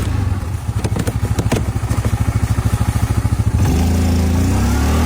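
ATV engine chugging at low revs with an even beat, then revving up about three and a half seconds in as the quad struggles for traction in deep snow.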